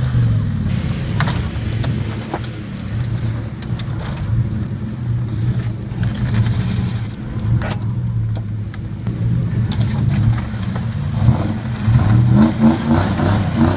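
Jeep Grand Cherokee V8 engine running under load, its note swelling and easing as the Jeep climbs onto a car, with a few sharp knocks and cracks. Near the end it revs in quick bursts as a rear wheel spins and throws dirt.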